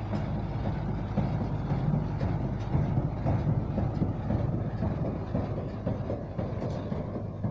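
Tractor-drawn hay baler at work: a steady low engine hum with irregular mechanical clattering from the baler.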